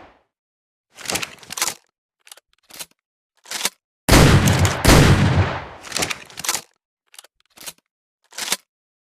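Double-barrel shotgun sound effect: several short sharp clicks of the gun being handled, then two loud shots less than a second apart, one from each barrel, each ringing out, then a few more clicks.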